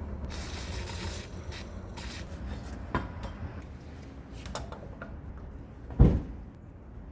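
Hands working on small metal tool parts: rubbing and scraping with scattered light clicks, and one heavier thump about six seconds in as something is set down.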